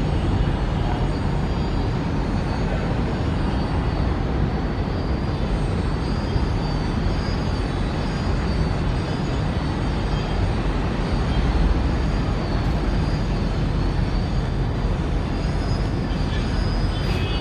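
Steady, distant low rumble of a Boeing 777-300ER's GE90 jet engines on final approach, with a faint high wavering whine above it.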